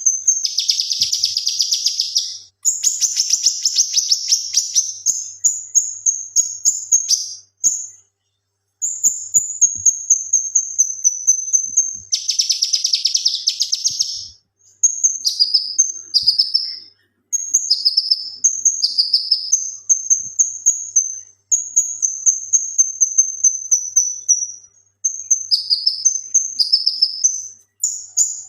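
Male cucak kinoi singing a long, high-pitched run of rapid repeated notes, broken by a few short pauses. Several dense rattling bursts (the 'tembakan' phrases) stand out, and later in the song the bird switches to quick falling whistled notes.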